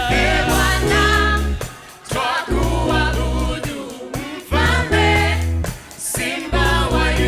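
A gospel worship song: voices singing together over a band with a heavy bass line, in sung phrases with short breaks between them.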